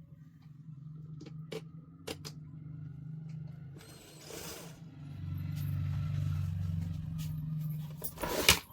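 Table fan's electric motor humming steadily, growing louder about five seconds in, with a few sharp clicks from handling the fan and a loud clatter near the end.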